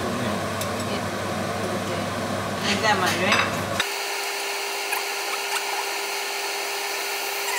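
Hot oil sizzling steadily in an iron karahi as handesh, Bengali jaggery fritters, deep-fry. About four seconds in, the sound changes abruptly to a thinner hiss.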